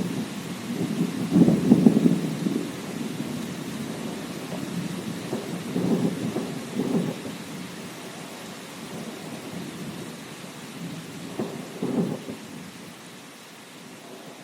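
Thunder rumbling in rolling waves over steady rain. The loudest roll comes about two seconds in, with further rolls around the middle and near the end as the rumble fades away.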